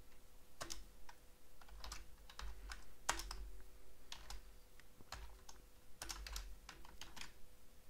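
Typing on a computer keyboard: irregular key clicks, a few a second, as a line of code is entered.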